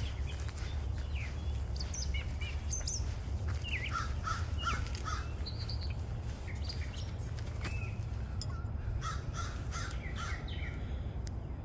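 Several birds calling and chirping, with a run of three or four short repeated calls about four seconds in and again near the end, over a steady low rumble.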